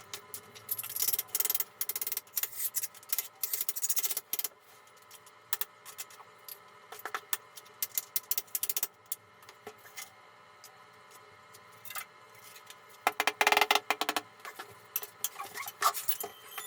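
Irregular bursts of scraping and clinking from hand tools working on tile, with a dense cluster about a second in and another loud run near the end.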